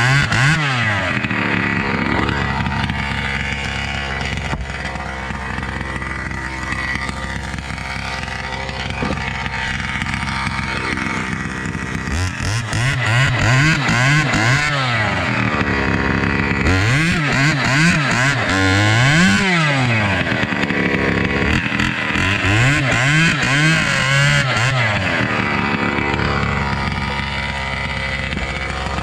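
Two-stroke chainsaw with a modified exhaust running loudly, revved up and let back down several times, in rising and falling sweeps in the second half.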